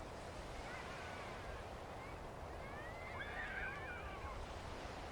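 Beach ambience: a steady wash of sea and wind. About three seconds in come brief, high, wavering calls, and fainter ones come about a second in.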